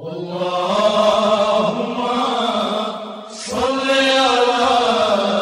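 A voice chanting in long held, slowly bending notes, in two phrases with a short break a little after three seconds in.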